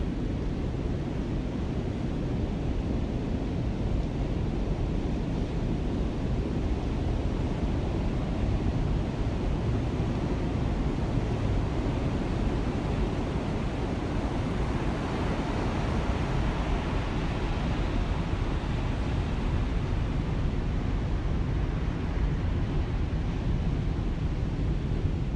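Steady rushing noise of heavy ocean surf breaking on a beach, even and continuous with no distinct single wave crashes.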